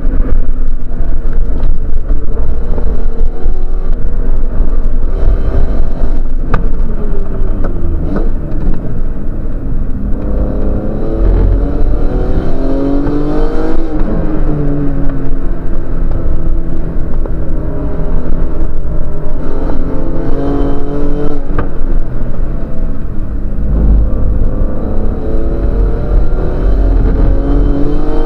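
Race car engine heard from inside the cabin under a heavy, steady rumble. Its pitch climbs and falls off again several times as the car accelerates and slows through the corners.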